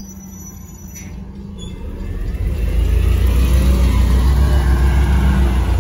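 Mercedes-Benz city bus pulling away from the stop and driving past. Its engine rumble builds about two seconds in and stays loud as it passes close by.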